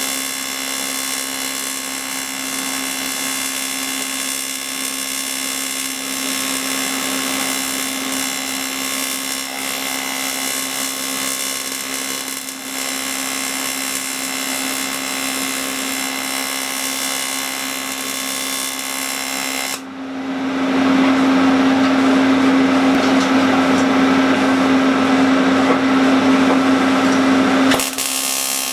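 Brazing torch hissing steadily over a constant hum while a cast iron gear is bronze-brazed. The sound grows louder and fuller about twenty seconds in, then drops back just before the end.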